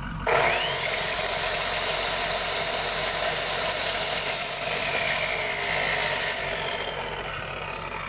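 Electric chop saw switched on right at the start, its motor whining up to speed within about a second and then running freely without cutting. This is the start that draws the inverter's inrush current. A diesel truck engine idles underneath.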